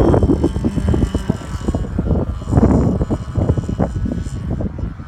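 Wind buffeting the microphone in gusts, with the faint steady drone of a large RC model airplane's DA-70 two-stroke gas engine flying in the distance.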